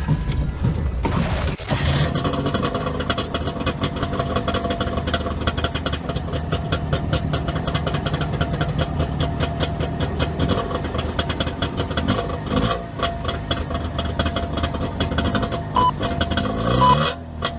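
Dubbed sound effect of a Trabant's two-stroke car engine running with a rapid, buzzy pulse and revving. A few short high beeps come near the end.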